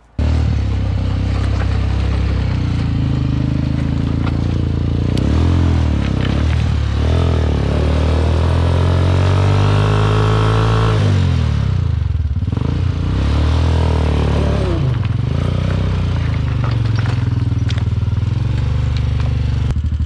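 ATV (quad bike) engine running and revving up and down as it is ridden over river stones. Its pitch climbs for several seconds about halfway through, then drops back sharply.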